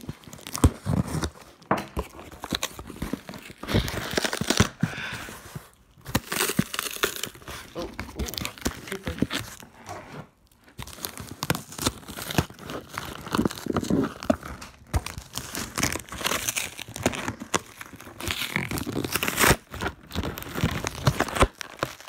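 Plastic wrap and a cardboard shipping box being torn open by hand: irregular crinkling and tearing with scattered knocks and clicks, pausing briefly twice.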